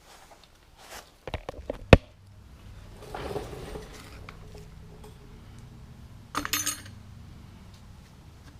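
Metal tools and parts clinking and knocking on a workbench: a few knocks about a second and a half in, one sharp clank just before two seconds, a rustle around three seconds, and a brief rattling clatter at about six and a half seconds.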